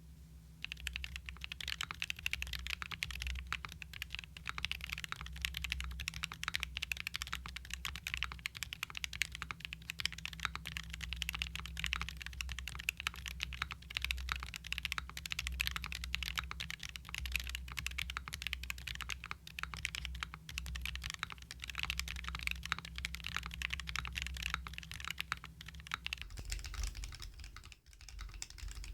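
Continuous fast typing on a gasket-mounted QK65 mechanical keyboard with a POM plate, TTC Venus linear switches and ABS keycaps: soft, muted keystrokes with a short pause near the end.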